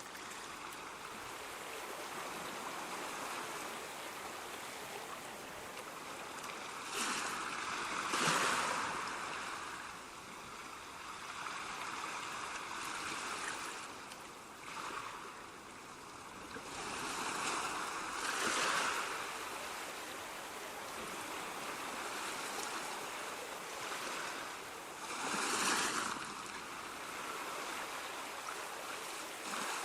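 Ocean surf: a steady wash of water with waves breaking and crashing every several seconds, three bigger crashes standing out.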